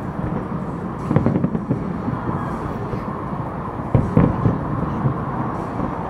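Distant aerial fireworks going off: a few dull booms and cracks, the clearest about a second in and two close together near four seconds in, over a steady background rumble.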